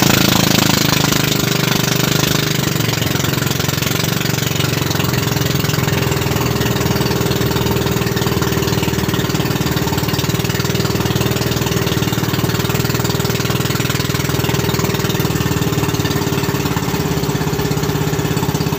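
Small fishing boat's engine running steadily, with a slight shift in pitch about two seconds in.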